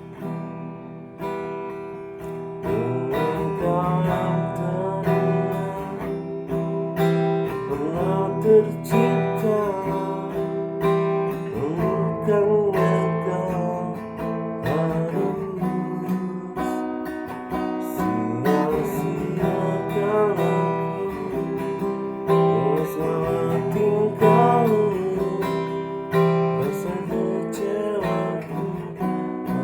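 Instrumental break in a song: acoustic guitar strumming chords, with a lead melody of bending, gliding notes over them from about two seconds in.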